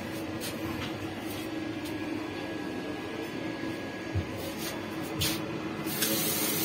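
Water starting to run from a washbasin tap into a stainless steel sink in a train washroom, a hiss that begins about six seconds in. Before it there is a steady background hum, with a couple of soft knocks.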